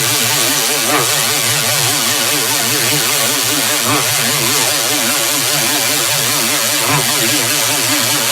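Loud, harsh buzzing tone whose pitch wobbles up and down evenly several times a second, with a heavy hiss over it: a distorted warbling sound effect.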